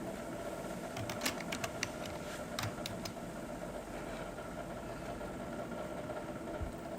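A quick run of sharp clicks and crackles about one to three seconds in, the sound of a tea packet's plastic wrapping being handled, over a steady mechanical hum.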